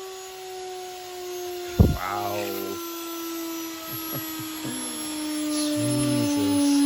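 Hoover H Wash & Dry washer-dryer running, its motor whining steadily with the pitch slowly falling. About two seconds in there is a loud bang, and lighter knocks and clunks follow, as the bent drum, partly off its suspension springs, strikes the cabinet.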